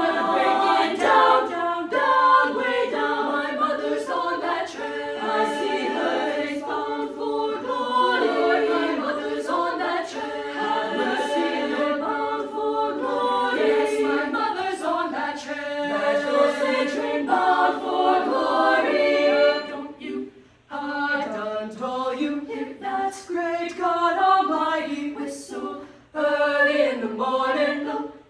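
Small high school vocal ensemble singing a cappella in several parts. The singing breaks off briefly about 20 seconds in and again about 26 seconds in.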